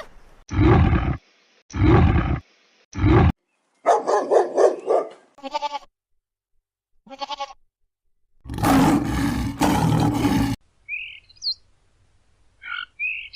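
A string of different animal calls cut one after another. It opens with three short, loud, low calls. Higher pitched calls follow, then a long loud call of about two seconds, and a few short bird chirps near the end.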